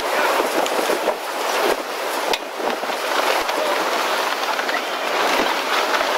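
Strong wind rushing over the microphone and buffeting it in a steady, loud rush.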